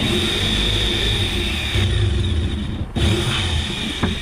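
Handheld power tool motor running under load, cutting ventilation openings for the fridge compressor into the boat's panel. It starts abruptly, breaks off about three seconds in and picks up again at once.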